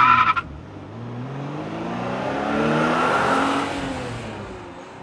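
Car engine sound effect: an engine revving up, its pitch rising as it swells to loudest about three seconds in, then fading away like a car accelerating past. A short, higher tone sounds at the very start.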